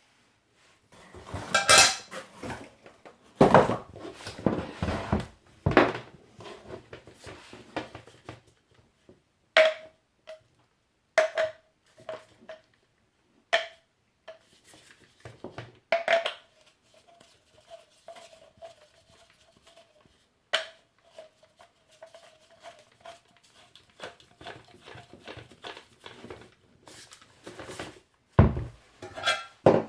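Parts of a boxed angle grinder being handled and set down: a string of knocks, clinks and rattles. Several hits strike a metal part that keeps ringing with one steady tone for a few seconds at a time.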